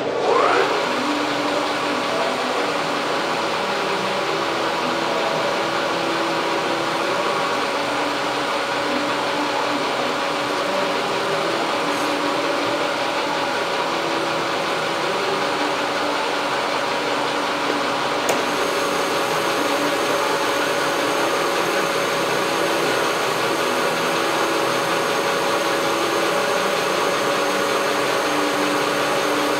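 Whacheon WL460 geared-head centre lathe winding up to speed at the start, then running steadily with a hum and a whine while taking a test cut on a bar. A single sharp click about eighteen seconds in.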